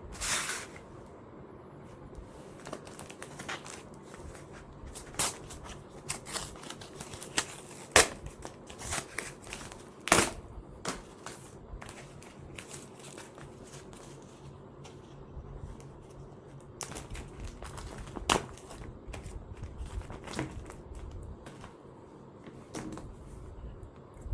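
Irregular sharp clicks and knocks of small hard objects being handled, over a faint steady low hum. The loudest knocks come about 8 and 10 seconds in.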